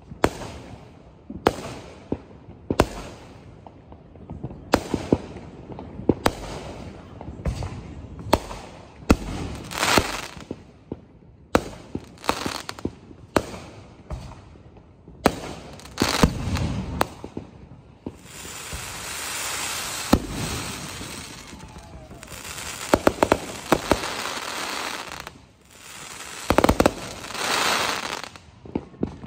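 Aerial fireworks going off in quick succession: sharp bangs, some with a low rumbling tail, broken by long stretches of crackling about two-thirds of the way through and a dense cluster of bursts near the end.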